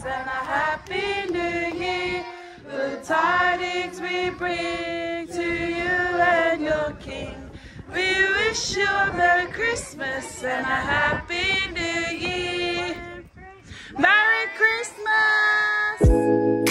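A group of voices, women and children among them, singing a Christmas carol together without accompaniment, phrase after phrase with short breaths between. Near the end, music with long held notes starts up.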